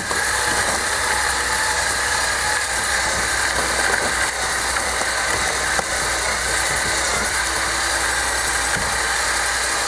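A motor running steadily as a winch pulls a boat up onto a trailer.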